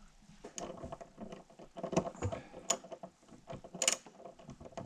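Irregular clicking and rattling of small metal cabinet hardware being fastened by hand: a screw being turned through a drawer front into a knob.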